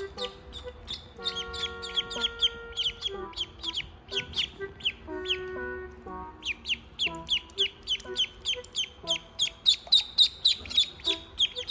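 Ducklings peeping: a rapid run of short, high calls that slide down in pitch, coming about four a second and loudest in the second half, over background music with held notes.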